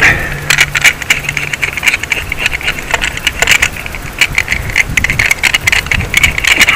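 A hand fish scaler with a scale-catching cup rasping scales off a small wet fish in quick repeated strokes, a dense run of scratchy clicks.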